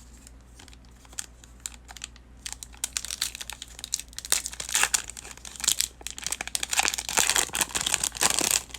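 Plastic trading-card pack wrapper crinkling and being torn open by hand, a run of crackles that grows denser and louder from about two seconds in.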